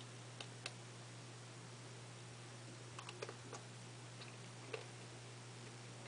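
Eating a chocolate-dipped ice cream cone: a few quiet crisp clicks and crunches of biting and chewing, two about half a second in, a cluster around three seconds in and one more near five seconds, over a steady low hum and hiss.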